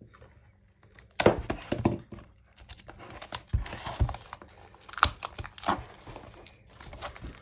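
Plastic wrapping on a cardboard trading-card box crinkling and tearing as it is pulled off by hand. Irregular rustles with a few sharp bumps from handling the box start about a second in.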